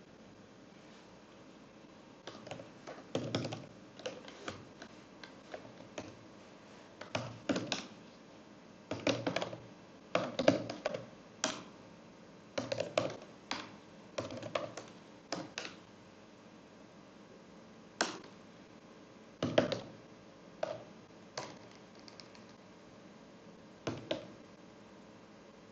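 Computer keyboard typing in short bursts of keystrokes with pauses between, as shell commands are typed into a terminal. A few single sharper key strikes stand out in the second half.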